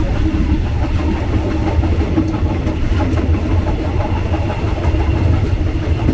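Train running on the rails: a steady, loud low rumble with faint irregular clicking from the wheels.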